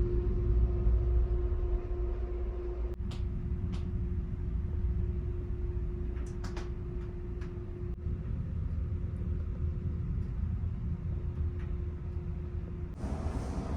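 Steady low rumble and hum of a large car ferry's engines heard aboard the ship, with a few faint clicks; the sound changes abruptly twice, once near the end.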